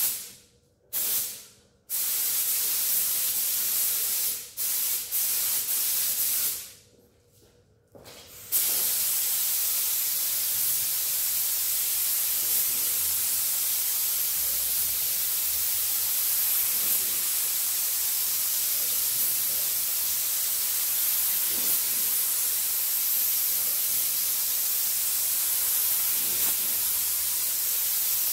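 Gravity-feed paint spray gun on compressed air, hissing as it lays gray primer on a truck body. A couple of short trigger pulls at the start, a longer spray cut by a pause around seven seconds in, then one long steady hiss.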